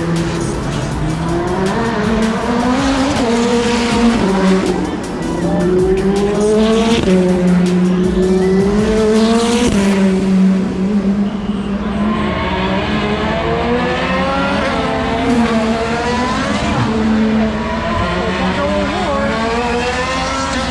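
Race car engines running hard on track, their pitch climbing through each gear and dropping back at every shift, over and over.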